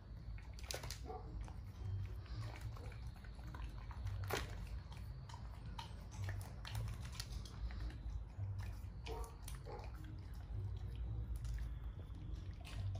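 A golden retriever eating at a bowl: scattered small clicks, crunches and wet mouth sounds at irregular moments, over a low steady hum.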